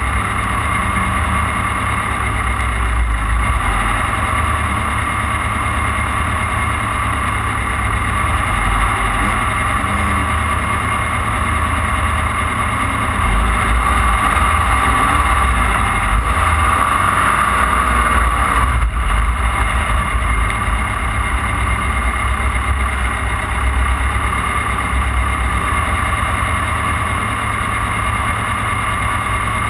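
Off-road desert race car running at speed over the course: a steady, loud engine drone over a heavy low rumble, the engine pitch shifting a little midway.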